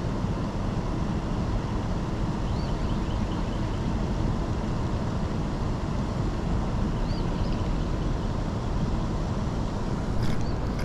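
Steady rush of water pouring from a dam outflow into the tailwater, with two or three faint high chirps.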